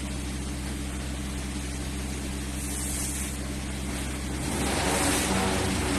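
Steady machine drone with a low hum, growing louder and fuller about four and a half seconds in.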